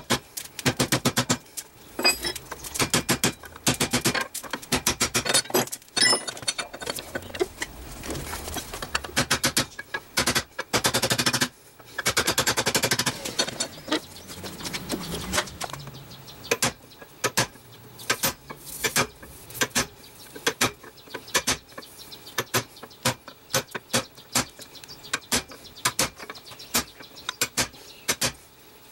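Hammer striking steel in a run of sharp metallic blows, some with a short ring: fast clusters at first, then single blows about one or two a second.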